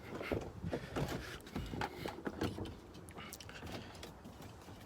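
Scattered light clicks and scrapes of a cable being pulled to trip the broken hood latch of a 2002 Dodge Durango.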